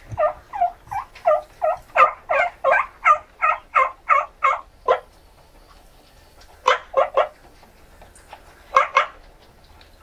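Turkey yelping: a run of about fourteen yelps at roughly three a second. After a pause come three quick yelps, then a pair near the end.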